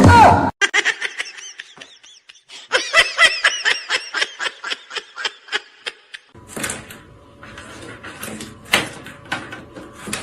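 A person laughing in rapid, high-pitched bursts, about five a second. After about six seconds this gives way to a noisier stretch with scattered clicks and a faint steady hum.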